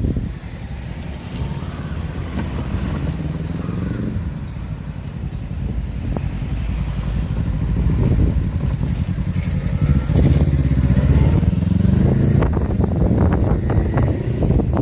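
Road traffic at a street intersection: motor vehicles running and passing, a steady low rumble that grows louder about halfway through as nearer engines go by.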